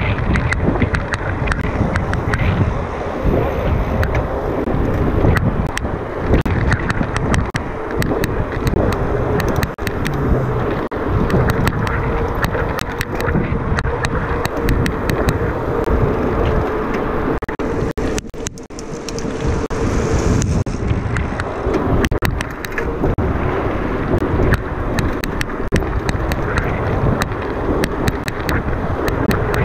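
Mountain bike ridden over rough ground: tyres running with constant rattling and many sharp knocks from the bike.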